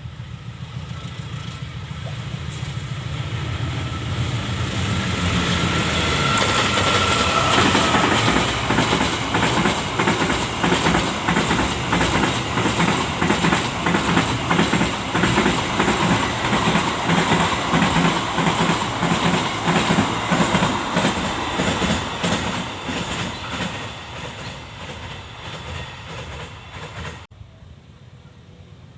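Train passing along the track: the noise builds over the first several seconds, then a long run of rhythmic wheel clacks over the rail joints, fading away toward the end before cutting off abruptly near the end.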